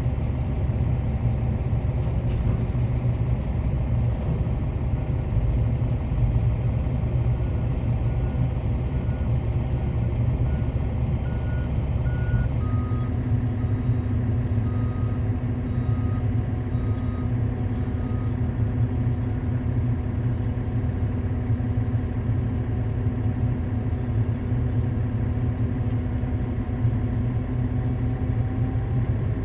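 Diesel engine of a Volvo articulated dump truck running steadily, heard from inside the cab. About eight seconds in, a backup alarm starts beeping about once a second. A few seconds later its pitch drops slightly and the engine note changes.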